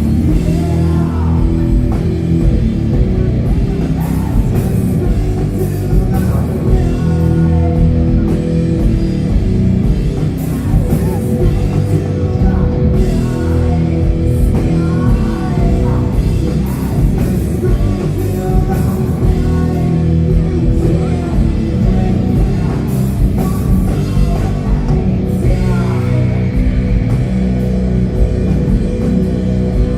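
Doom metal band playing live: distorted electric guitars and bass over a drum kit, with a voice singing.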